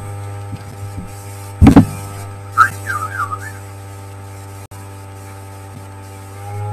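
Steady low electrical hum, with a single thump about a second and a half in and a brief warbling whistle about a second later. Near the end a sustained droning tone swells in.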